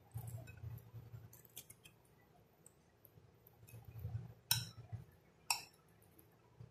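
Metal spoon stirring a chickpea, potato and onion mix in a glass bowl: soft stirring sounds with a few light taps. The spoon clinks sharply against the glass twice, about a second apart, past the middle.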